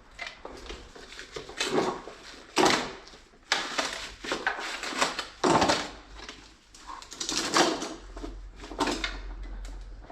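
Plastic pressure-washer parts being handled and fitted together: an irregular run of knocks, clicks and rattles, the loudest a few seconds in.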